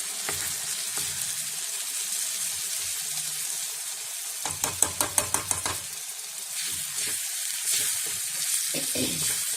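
Ground paste of curry leaves, ginger and small onions sizzling in hot gingelly oil and ghee as it is stirred and sautéed to cook off its raw smell. A quick run of sharp taps comes about halfway through.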